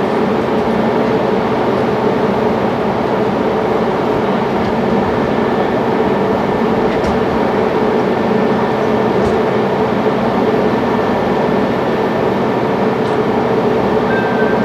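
Caltrain commuter train standing at the platform with its equipment running: a steady, loud mechanical drone with a constant hum, with a few faint clicks as passengers board.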